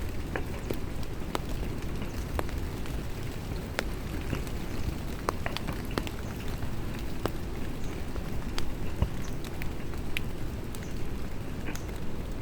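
Rain falling: a steady rush with scattered sharp drop ticks at irregular intervals.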